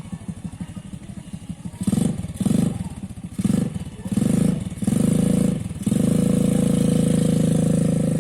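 Small ATV engine idling with a slow, even putter, then blipped up in short bursts of throttle about five times, then held at steady higher revs from about six seconds in.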